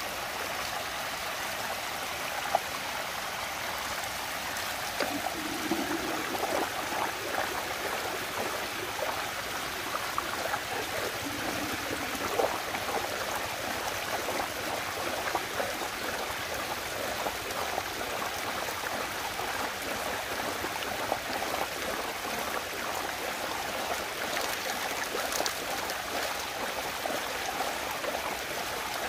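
Water rushing and gurgling steadily as it spins down a whirlpool vortex, with a few brief sharper knocks now and then.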